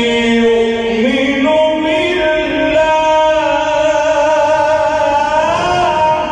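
A male reciter chanting the Quran in a melodic tajweed style, drawing out the word 'yu'min' in one long held melisma. The pitch steps up about a second in and rises again near the end.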